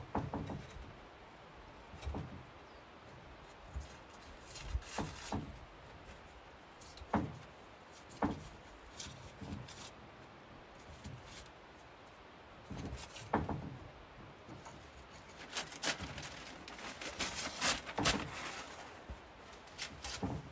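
Old rice paper being torn and peeled off a wooden shoji screen's lattice by hand: irregular rips and crinkling rustles, with occasional knocks of the wooden frame. A busier run of tearing comes about three quarters of the way through.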